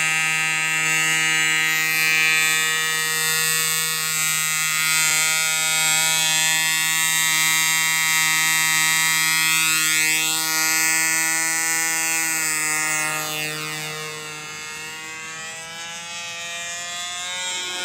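Small two-stroke engine of a control-line model aircraft running at high speed, a steady high-pitched buzz. Its pitch wavers a little and it grows quieter about two-thirds of the way through.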